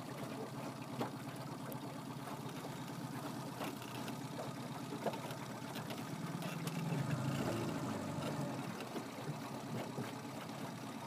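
A boat's motor running with a steady low hum that grows louder for a couple of seconds past the middle.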